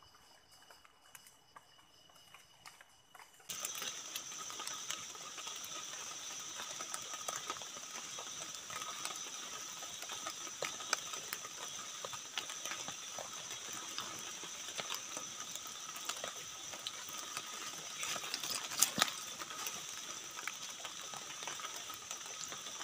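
A chorus of night insects trilling steadily at several shrill pitches, full of rapid clicking, faint at first and then much louder from about three and a half seconds in. Scattered sharp ticks run through it, the loudest a little before the end.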